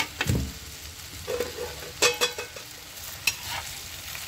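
Chopped okra sizzling in hot mustard oil in a metal kadai while a perforated metal spatula stirs it, scraping and knocking against the pan a few times, with a brief metallic ring after some knocks.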